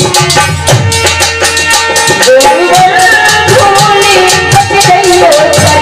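Live Indian folk devotional song: drum strokes and rattle-like percussion with a steady instrumental line, then a woman's singing voice comes in about two seconds in and carries the melody.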